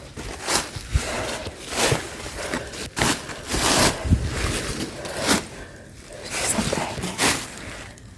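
Irregular footsteps with scuffing and scraping, about one step a second.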